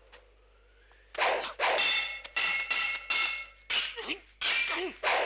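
Swords clashing in a film sword fight: after a near-silent first second, a rapid run of about eight sharp metallic clangs, each ringing on briefly.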